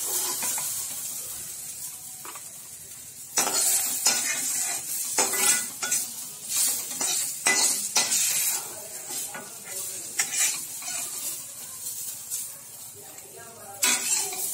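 Coriander, mint and garlic sizzling in oil in a wok, with a metal spatula stirring and scraping against the pan. The scrapes come in a quick run a few seconds in and again near the end, over a steady sizzle; the chutney ingredients are done frying.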